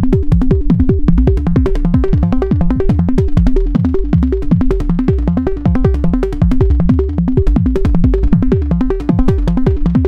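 Make Noise Eurorack modular synthesizer playing a patch of tuned synthesized kick drums: a fast run of short hits, several a second, each dropping quickly in pitch, over repeating pitched notes and dense short clicks.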